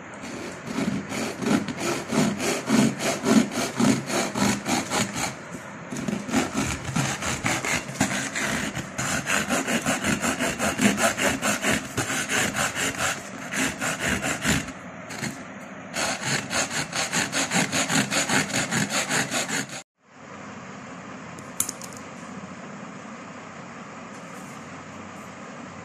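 A thin saw blade rasping back and forth across the top of a metal aerosol spray can in rapid strokes, pausing briefly a few times. It cuts off suddenly, leaving a steady hum with one sharp click.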